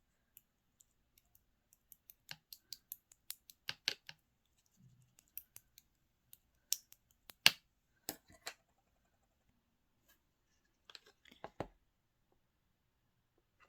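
Clear slime being pressed and worked by hand, giving irregular sharp clicks and pops. A quick run of clicks comes about two to four seconds in, the loudest pop about halfway, and a short cluster near the end after a quiet pause.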